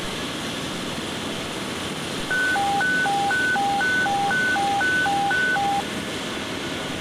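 Fire-dispatch radio alert tone: short beeps alternating between a high and a low pitch, about four a second for three and a half seconds, starting about two seconds in. The tone signals that a dispatch call is about to follow. Under it is a steady rushing background.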